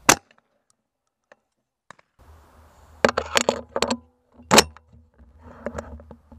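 A single 12-gauge shotgun shot right at the start, short and sharp as heard through a gun-mounted action camera. After a pause, clicks and clatter of the semi-auto shotgun and its mounted camera being handled, with one loud sharp click about four and a half seconds in.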